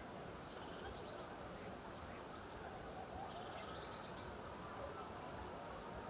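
Lakeside wildlife ambience: two short, high-pitched trilled calls about three seconds apart, each starting with a thin sharp note, over a low steady background rumble.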